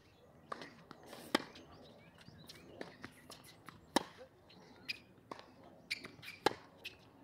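Tennis rally on an outdoor hard court: a string of sharp pops from racket strings striking the ball and the ball bouncing, the loudest about a second and a half in, about four seconds in and shortly before the end, with fainter pops between.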